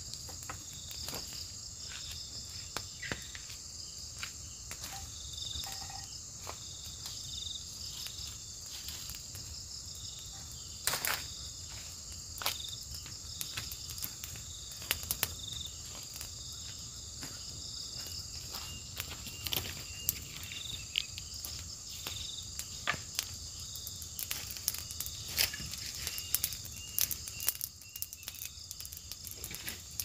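Night insects calling: a steady high-pitched drone with a rapid pulsing chirp just below it. Scattered short sharp clicks and crackles sound over it, a few louder ones among them.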